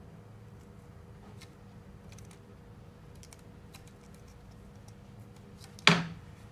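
Faint scattered ticks and crinkles of stretchy silicone grip tape being wound by hand around a hockey stick's butt end, then one sudden sharp knock near the end, much louder than the rest and dying away quickly.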